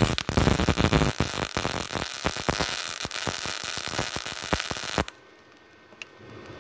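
MIG welding arc from a Multipro MIG 160A SC set to about 45 amps with CO2 shielding gas, running a bead on 1 mm galvanized steel ground to bright metal: a steady dense crackle with sharp spatter pops. The arc cuts off suddenly about five seconds in.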